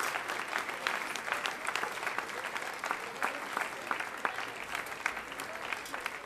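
Audience applause, many hands clapping, slowly thinning out and growing quieter.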